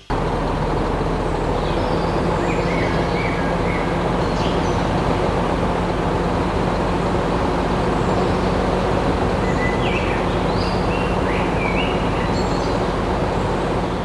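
A motorised machine running steadily: an even rushing noise over a constant low hum, with a few faint short high chirps.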